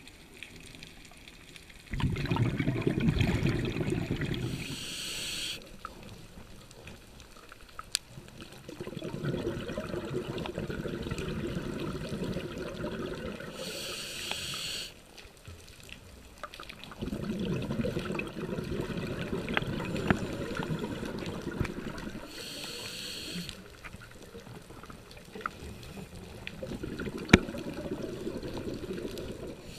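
Scuba diver breathing through a regulator, heard underwater: a short hiss of inhaled air about every nine seconds, each followed by a long low rush of exhaled bubbles.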